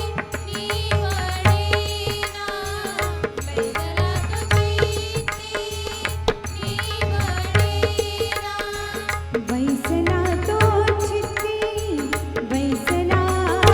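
Indian devotional music: tabla and pakhawaj drumming a dense, steady rhythm under a gliding melody line.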